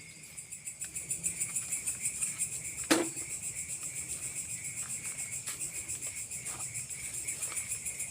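Night forest insect chorus: a steady high drone, with a shrill pulsing chirr coming in about half a second in at roughly five pulses a second. A single sharp click or knock about three seconds in is the loudest sound.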